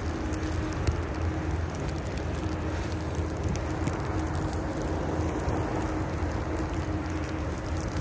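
Snowstorm wind buffeting a phone's microphone: a steady low rumble with a hiss over it.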